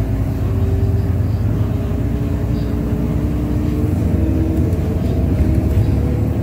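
City bus in motion, heard from inside the cabin: a steady low rumble of engine and road with a droning engine hum whose pitch shifts slightly as it drives.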